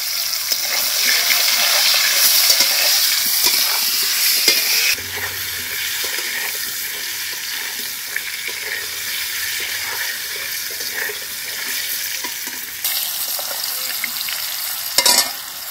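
Potato chunks sizzling in hot oil in a kadai, with a metal spatula scraping the pan as they are stirred. The sizzle is louder for about the first five seconds, and a sharp knock comes near the end.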